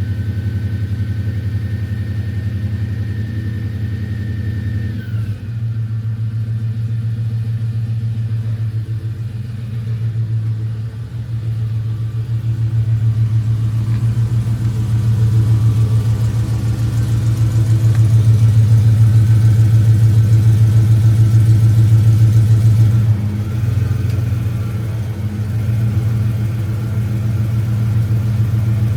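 Catless Dodge Charger's engine running at low speed with a deep, pulsing exhaust note, getting louder about halfway through and easing back about two thirds in. A thin high tone stops about five seconds in.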